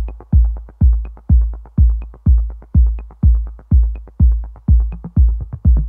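Background electronic music: a deep, falling kick drum beating steadily about twice a second, with faint high ticks over it.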